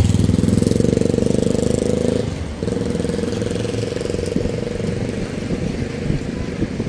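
Street traffic: a motor vehicle's engine running close by with a steady low hum and a rapid firing pulse, loudest for about the first two seconds and then easing, with general traffic noise behind it.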